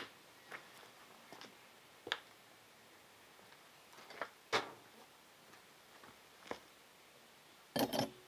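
Scattered light clicks and knocks of a bicycle pedal and its spindle being handled and refitted. There are about eight separate taps, with a short cluster near the end.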